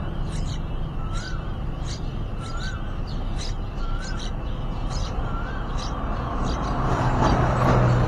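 Nestling songbirds begging at the nest: thin, high chirps repeated in a quick, regular series. A short rising-and-falling note sounds about once a second, and a louder rustling swell comes near the end as the parent bird settles over the nest.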